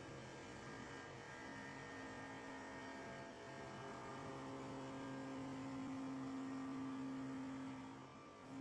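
Twin-spindle CNC wood turning lathe running as it turns two wooden blanks, heard as a faint steady electric hum with a few held tones that fade in and out.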